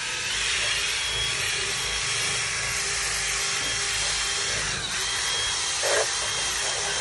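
Cordless drill running steadily with a round bristle scrub brush spinning against a car's door panel, giving a steady scrubbing whir; a brief louder bump about six seconds in.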